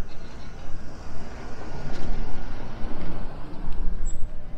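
Street traffic: a motor vehicle passing, its noise swelling about two seconds in and easing off near the end.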